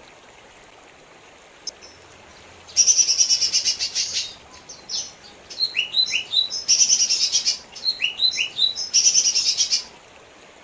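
Lesser green leafbird (cucak ijo mini) singing: phrases of rapid, high chattering trills and quick down-slurred whistles, starting about three seconds in and repeating several times. A steady hiss of running water lies underneath.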